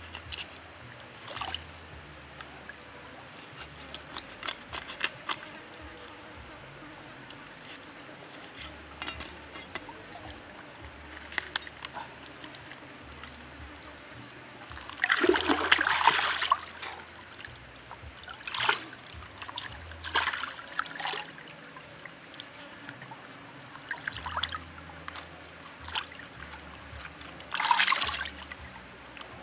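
Water splashing in short bursts as a whole plucked chicken is swished and rinsed in a shallow stream, over the stream's steady trickle. The longest, loudest splashes come about halfway through and again near the end.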